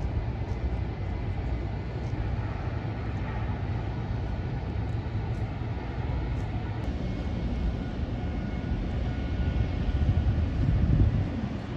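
Steady low outdoor rumble at a shipyard waterfront, with a faint thin whine in the middle and a swell in loudness about ten seconds in.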